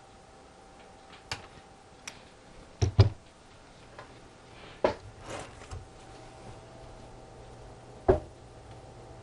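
Irregular clicks and knocks of small clock parts being handled and fitted while the hands of an antique longcase clock are reassembled, about seven in all, the loudest a close pair about three seconds in.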